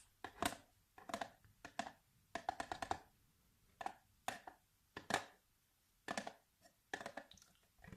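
Fingertips tapping on a surface close to the microphone: irregular single taps, with a quick run of several taps about two and a half seconds in.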